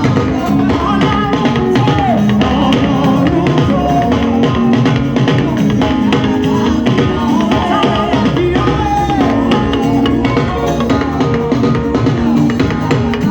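Upbeat gospel band music with a full drum kit keeping a steady beat and singing over it.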